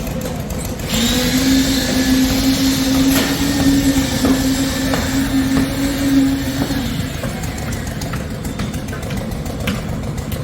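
A steady low engine rumble, with a motor-driven machine starting suddenly about a second in and running with a steady whine and hiss until it fades about seven seconds in.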